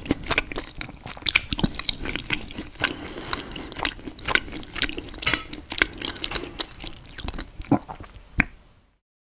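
Close-miked eating sounds: wet chewing, smacking and mouth clicks, several each second, which stop abruptly near the end.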